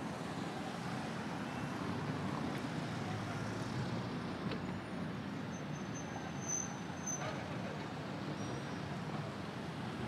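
Steady city road traffic noise: passing vehicles blend into a continuous rumble and hiss, with a brief high-pitched squeak about six and a half seconds in.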